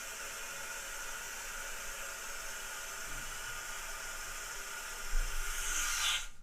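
Toilet cistern refilling after a chain-pull flush: a steady hiss of water running through the fill valve. It grows brighter near the end and cuts off suddenly.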